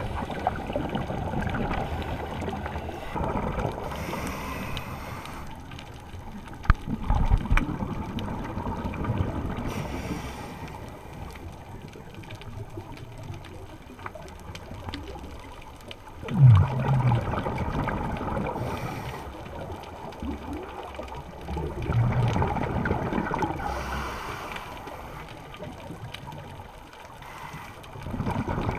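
Underwater sound heard through an action-camera housing: gurgling bubbles from scuba divers' exhalations, rising in surges several seconds apart over a rough watery rumble.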